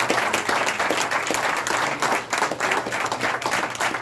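Applause from a small group: many hands clapping steadily and densely.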